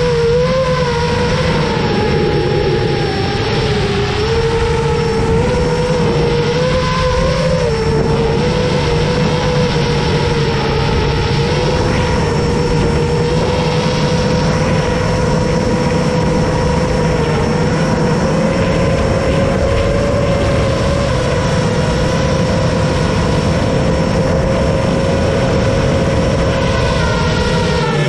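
FPV quadcopter's motors and propellers whining at a steady pitch, wavering slightly with throttle.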